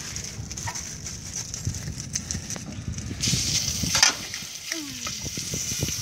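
Raw meat dropped into a hot steel wok starts sizzling suddenly about three seconds in and keeps frying steadily, with a sharp metal knock against the wok about a second later.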